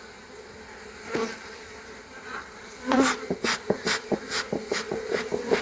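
Honeybees buzzing around an opened hive in a steady hum. From about halfway, a quick run of sharp clicks and taps, several a second, is the loudest sound.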